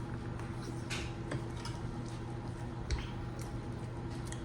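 Someone biting into and chewing sauce-coated seafood boil: faint wet squishing and a few small clicks, over a steady low hum.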